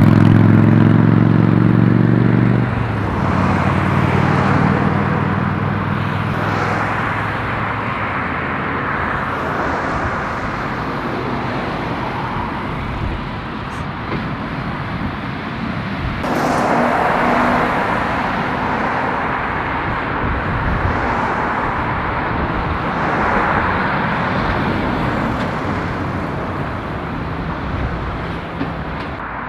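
Lorries and cars passing close by on a dual carriageway. A diesel lorry engine runs loud and strong as it goes past near the start. After that comes a succession of tyre and engine noise swells, rising and falling as each vehicle passes.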